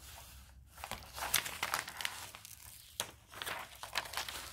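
Protective film being peeled back from the sticky diamond painting canvas, with irregular crackling and crinkling as it comes away from the adhesive.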